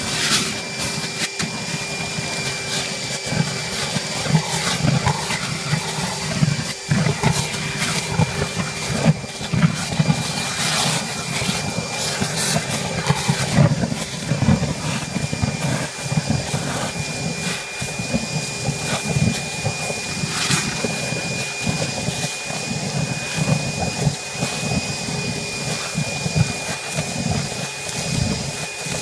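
Roll n Vac wet/dry vacuum extractor running with a steady motor whine while its hose sucks up thick wet mud, the suction gurgling and slurping unevenly with frequent small knocks of debris.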